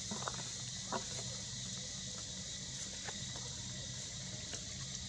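Outdoor background of a steady high hiss over a low hum, with two short, sharp animal-like clucks or clicks about a quarter second and a second in, and a fainter one about three seconds in.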